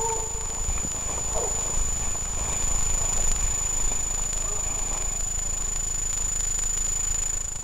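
Steady low rumble of wind and handling noise on a hand-held camera's microphone as it is carried through woodland, under a thin constant high whine. A hunting dog gives one faint bark about a second and a half in.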